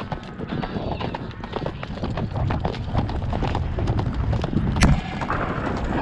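Hoofbeats of a ridden horse or mule moving fast on a gravel road, a quick run of hoof strikes on loose stones.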